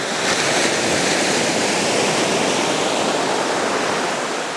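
Sea surf: a steady rush of breaking waves, fading near the end.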